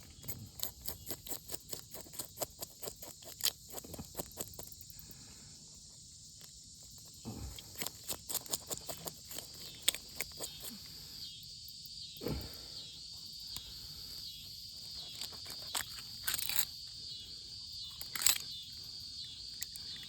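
Steady high-pitched insect chorus of crickets, with clusters of rapid clicking and tapping in the first few seconds and again from about seven to eleven seconds in.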